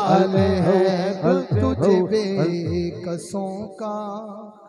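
A male voice singing an Urdu Sufi manqabat into a microphone, over a steady drone and deep drum strokes. The drums stop about three seconds in and the song fades out as it closes.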